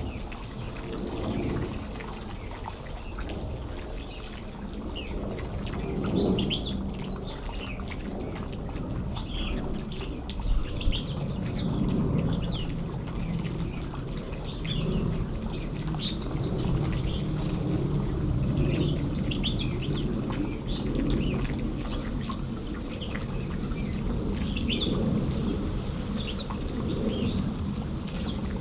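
Bulbuls giving short, scattered chirping calls, over a steady low rush of water.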